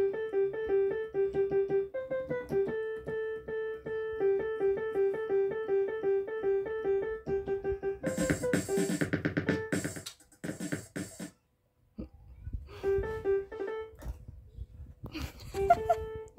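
Yamaha electronic keyboard playing quick repeated notes in a steady rhythm, a few pitches alternating. About halfway through, a dense jumble of notes and noise comes in as the toy poodle puts its head down on the keys. The playing drops out briefly, then resumes.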